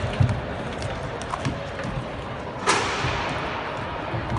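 Fencers' feet thudding and stamping on a wooden sports-hall floor during a bout, over the echoing hall noise. A single sharp, louder burst sounds a little past halfway.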